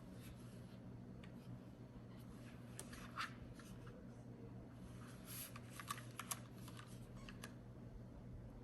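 Faint handling noise from unboxing a keyboard: scattered light clicks, taps and rustles, gathered about three seconds in and again between five and six and a half seconds, over a steady low hum.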